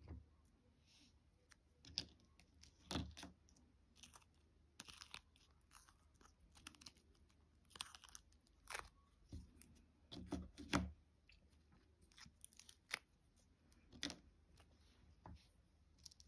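Silicone mold being flexed and peeled as cast resin pieces pop free: scattered soft clicks and crackles, with louder clusters of snaps about three seconds in and again around ten to eleven seconds.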